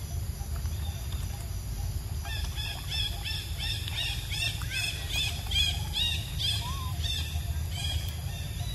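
A bird calling in a fast run of repeated high, arching chirps, about three a second, starting about two seconds in and stopping shortly before the end, over a steady low rumble.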